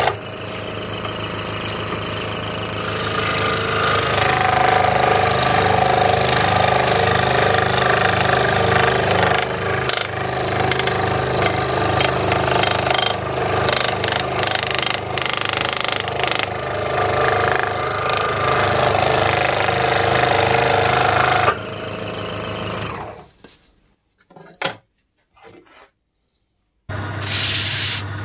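Electric scroll saw running and cutting thin wood, a steady buzzing rattle from the reciprocating blade, which stops about three quarters of the way through. After a few short noises and a brief silence, a disc sander's motor starts up near the end.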